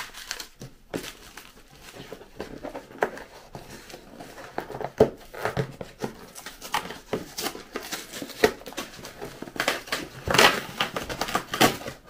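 Plastic shrink-wrap crinkling and rustling as it is pulled off a cardboard box of dishwasher tablets, then the box's cardboard top torn open, with the loudest ripping about ten seconds in.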